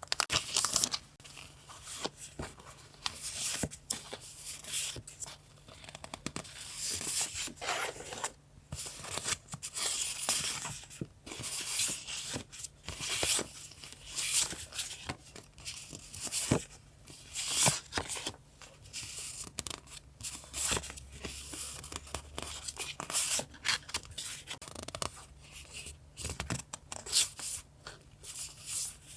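Paper being handled: irregular rustling, crinkling and tearing strokes, with a few sharper clicks.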